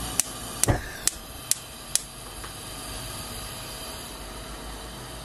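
Gas stove burner being lit: the igniter clicks sharply about six times, roughly two a second, then the burner hisses steadily under the saucepan.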